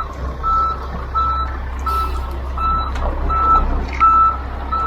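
Dump truck reversing: its back-up alarm beeps at one steady pitch about once every 0.7 seconds over the low, steady rumble of its diesel engine.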